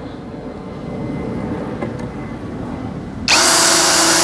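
A DCK KDJZ03-13 cordless brushless drill starts suddenly a little over three seconds in and runs steadily in its high-speed second gear, a 7 mm metal bit cutting into 1 cm thick steel plate. Before it starts there is only a low background hum.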